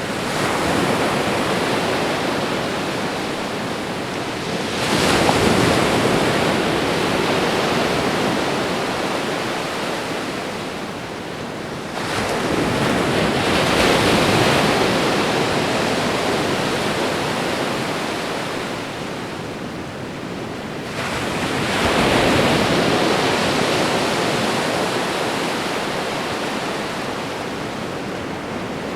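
Ocean waves washing onto a shore: a continuous rush of surf that swells three times and ebbs in between.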